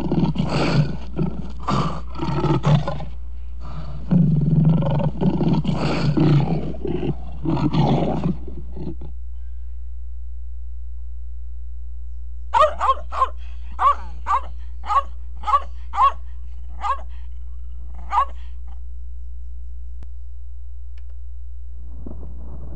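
Sound-effect recording of a big cat roaring, several long growling roars over the first nine seconds. After a pause of a few seconds comes a quick series of about a dozen short, high barks from a dog.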